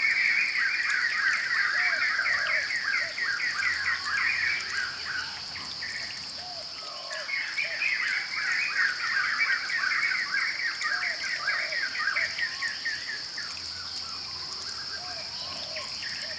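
Wildlife ambience: a steady, high insect drone, over which an animal gives two long, rapid trills of about six seconds each, the second starting about seven seconds in.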